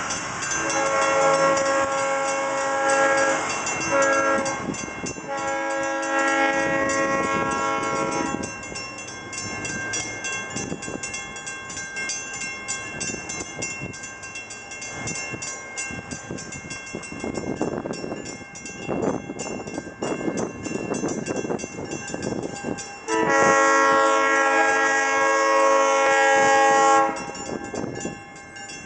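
Diesel freight locomotive's air horn blowing for a grade crossing as the train approaches: two long blasts, a gap of about fifteen seconds, then another long blast near the end. Between the blasts a crossing signal bell rings under softer train and street noise.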